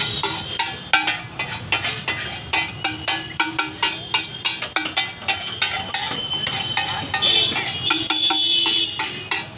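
Metal spatula clanging and scraping on a large flat griddle (tawa) as pav bhaji is mashed and spread, in quick irregular strikes several times a second.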